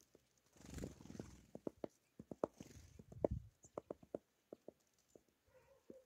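Birds, a great spotted woodpecker among them, pecking at food on a wooden feeder tray: irregular sharp taps, several a second, with brief bursts of rustling.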